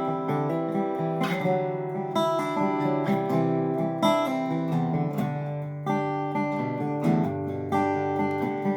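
Gretsch resonator guitar played with strummed chords and picked notes that ring on between strums.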